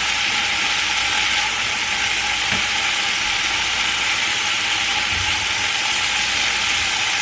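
Green beans sizzling steadily in a hot frying pan while a silicone spatula stirs them.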